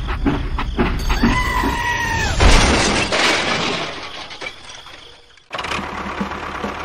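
Toy train derailing and crashing: a short run of clicks, a train horn blast lasting about a second, then a loud crash with shattering that fades out over a couple of seconds.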